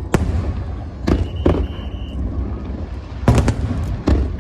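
Fireworks display: aerial shells bursting in a series of sharp bangs, about six in four seconds, over a steady low rumble.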